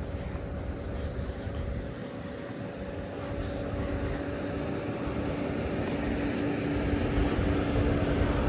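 A steady mechanical drone holding a couple of fixed tones, slowly growing louder, over a rough low rumble on the microphone.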